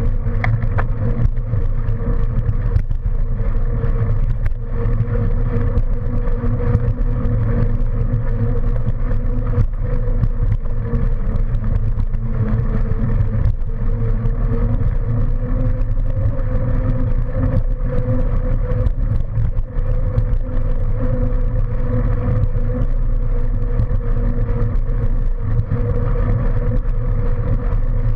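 Steady rumble of wheels rolling over a paved path, picked up by a camera riding on the moving vehicle, with a steady hum and scattered small rattles and clicks.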